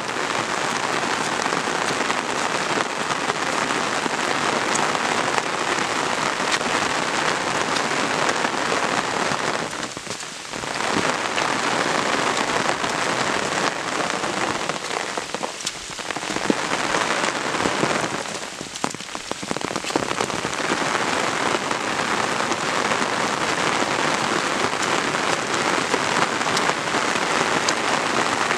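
Steady rain falling and pattering close by, a dense even hiss that briefly drops in level three times, about a third and about halfway in.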